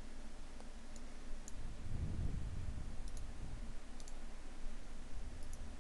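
A handful of faint computer mouse clicks, some in quick pairs, over steady microphone hiss.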